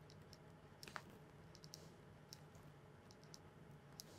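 Faint, irregular clicks and taps of a plastic stylus on a pen tablet as marks are written, over a faint steady low hum.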